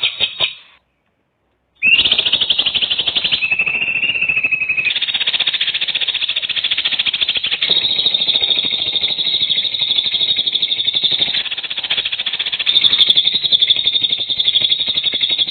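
A bird calling in a long, rapid buzzing trill that starts about two seconds in after a brief pause, with a short stretch of lower, steadier tone partway through.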